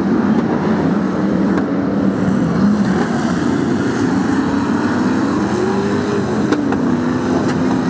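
Several BriSCA F1 stock car V8 engines running at racing revs, their pitch wandering up and down as the cars go round. One note rises and falls again about six seconds in as a car passes.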